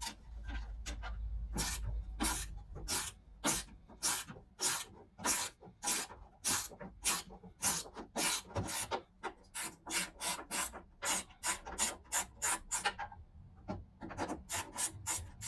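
Hand ratchet with a socket working a nut on a car door's window-regulator mounting: quick rasping ratchet strokes, a little under two a second, stopping briefly near the end and then starting again.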